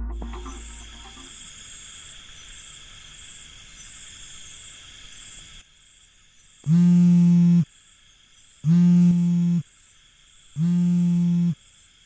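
A low drum rumble dies away, leaving faint steady insect chirring. The chirring cuts off, and a loud low buzz then sounds three times, each about a second long and about two seconds apart.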